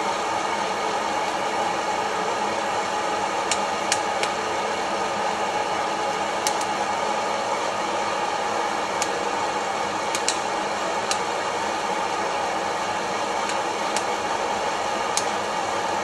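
Kaffelogic coffee roaster's fan blowing steadily, with about a dozen sharp, irregular pops scattered through it from a few seconds in.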